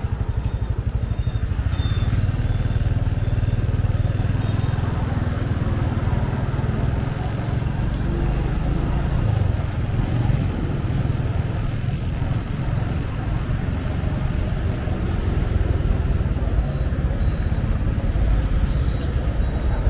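Steady engine and road noise from a vehicle travelling along a busy road, a continuous low rumble without a break.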